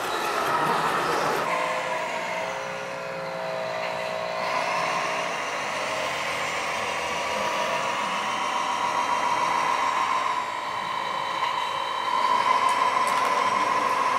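Model Liebherr 944 hydraulic excavator working its arm and bucket: a steady high whine from its pump and motor that grows stronger in the second half. A brief rougher mechanical noise comes at the start.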